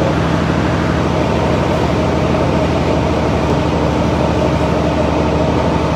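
Steady mechanical hum: a low drone of constant pitch over an even noise, unchanging throughout.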